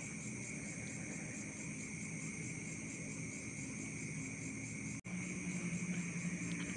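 Steady high-pitched chirring of crickets in the background. About five seconds in the sound cuts out for an instant, and a low hum joins after it.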